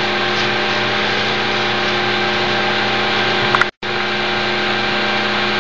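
Steady machine hum with a broad hiss, a low even drone with several tones stacked above it, cutting out for a moment about two thirds of the way through.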